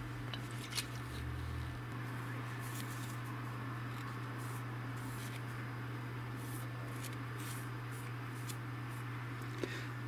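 Cloth dampened with isopropyl alcohol rubbed in short strokes over a remote control's circuit board, making faint repeated scratchy wipes. A few small clicks from the alcohol bottle come first. A steady low hum lies underneath.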